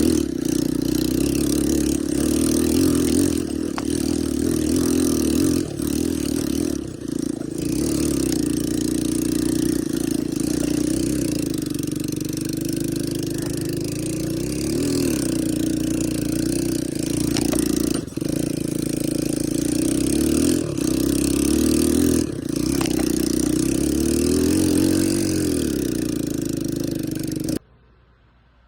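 ATV engine running with the throttle varying, its pitch wavering up and down, under a steady hiss. It cuts off suddenly near the end.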